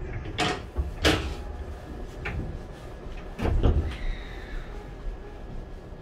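Several sharp knocks and clunks inside an E231 series commuter train car, over a steady low rumble, with a faint high tone starting about four seconds in.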